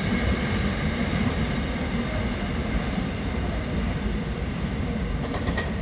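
Korail 312000-series 'Cube' electric commuter train pulling out of the station: a steady rumble of wheels on track. A thin high tone comes in about halfway through.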